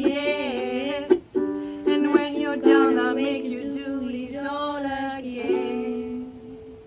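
Ukulele strummed under sung, drawn-out vocal lines in the closing bars of a pop song. The final chord rings and fades out near the end.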